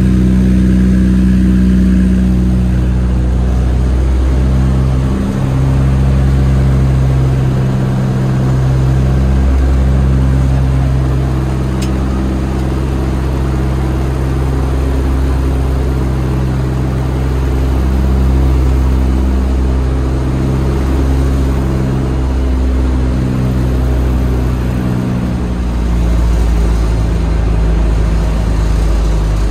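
The twin radial engines of a Grumman Albatross running steadily as it comes in to land, heard from inside the cockpit. The drone has a slow regular pulsing, and its pitch shifts a few seconds in and again near the end as power is changed.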